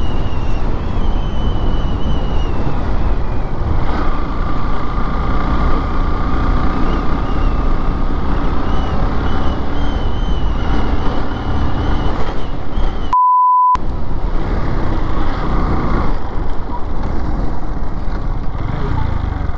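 Motorcycle riding along at speed, its engine running under a steady rumble of wind and road noise on the open microphone. About two-thirds of the way through, a half-second beep tone replaces all other sound.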